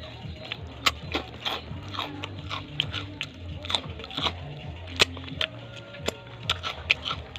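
Crisp fish crackers being bitten and chewed close to the microphone: a run of sharp, irregular crunches, a few each second.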